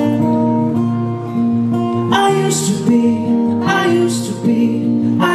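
Acoustic guitar strummed in a slow pattern, chords ringing between fresh strums about every one and a half seconds.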